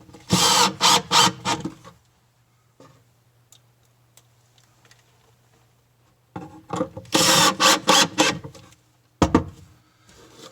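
Power driver running in two bursts, the second longer, driving coarse-threaded flat-head Euro screws through a drawer slide into the cabinet side. A sharp click follows near the end.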